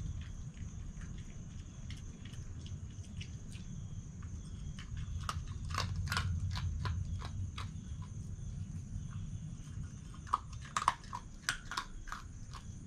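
Red fox chewing and crunching its food, with sharp crunches in two spells, one around the middle and one near the end, over a steady low rumble.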